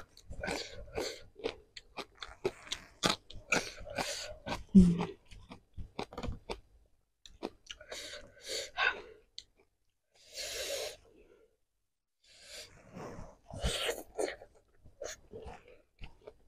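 Close-miked mouth sounds of a person eating: crunchy bites and wet chewing in irregular runs with short pauses, and a breathy hiss lasting about a second around ten seconds in.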